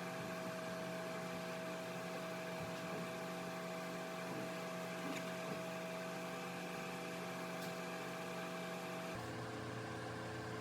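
A steady machine hum with a fixed high tone over a lower drone. The tone drops out and the hum changes slightly a little after nine seconds.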